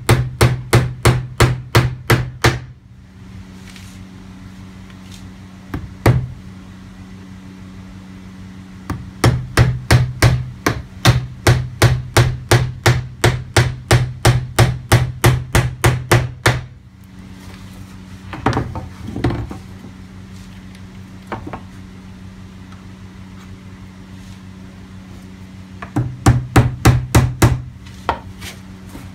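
Hammer blows on a workpiece clamped to a workbench, struck in quick runs of about four blows a second with pauses between. A steady low hum shows in the gaps.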